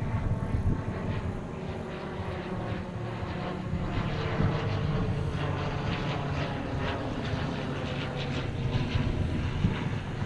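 ICP Savannah S ultralight's propeller engine running steadily as the plane taxis on the ground, a continuous drone without any run-up.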